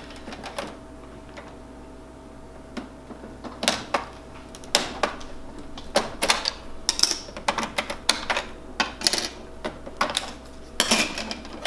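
Irregular plastic clicks, snaps and knocks as a Kyocera copier's control panel is taken apart by hand. They start about three and a half seconds in, after a quiet stretch, and come thick and fast from then on.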